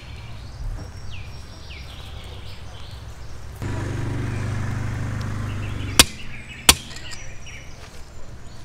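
Two sharp knocks about two-thirds of a second apart, the loudest sounds here, with birds chirping and a steady low rumble that comes in about three and a half seconds in.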